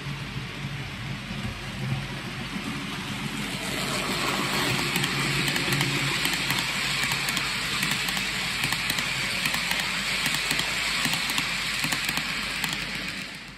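OO gauge model oil tanker wagons rolling past close by: a steady metallic rush of small wheels on the rails with fine clicks running through it. It grows louder about four seconds in as the wagons pass right in front, and cuts off suddenly at the end.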